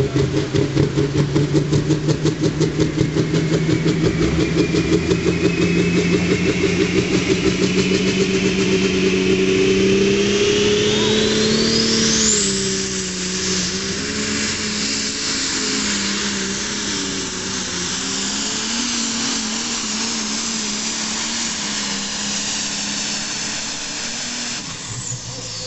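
Turbocharged diesel engine of a smoker-class pulling tractor running hard as it pulls the sled. The engine note climbs steadily with a rising turbo whine that reaches a high scream about twelve seconds in; then the engine labours on with its pitch wavering. Near the end the sound breaks off abruptly.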